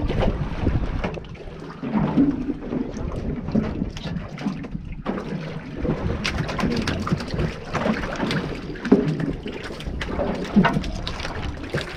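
Wind buffeting the microphone and water slapping against the hull of a small aluminium boat, with scattered knocks and clatter from gear handled on deck.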